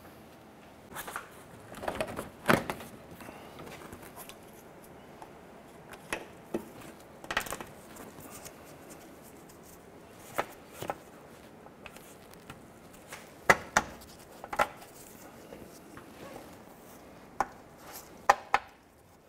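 Plastic push-pin trim retainers being pressed into a car's plastic lower splash shield: irregular sharp clicks and snaps, about a dozen, some in quick pairs, with light knocking of the plastic panel.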